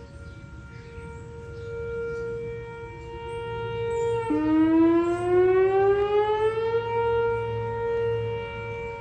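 Whelen 4004 electronic tornado siren sounding a steady tone during its test. About four seconds in, the pitch drops suddenly and glides back up over about two and a half seconds, then holds steady again, swelling and fading in loudness.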